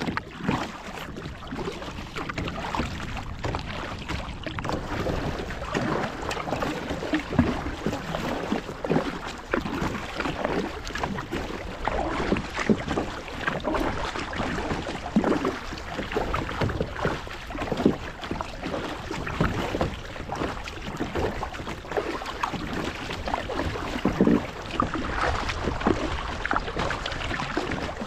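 Sea water lapping and splashing against the hull of a Viking Profish Lite 400 sit-on-top kayak in irregular slaps, with wind rushing on the microphone.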